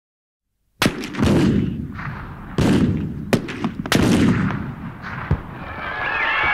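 Battle sound effects: after a moment of silence, a series of sharp gunshots and deep cannon-like booms begins about a second in, and men start shouting near the end.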